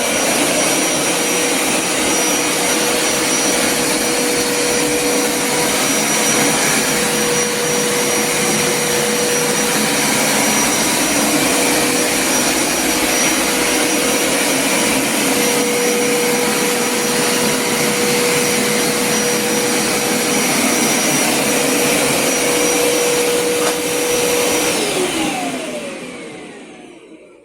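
Hoover PowerScrub XL carpet cleaner's motor running steadily with a constant whine over its rushing noise. Near the end it is switched off and winds down, the whine falling in pitch as it fades.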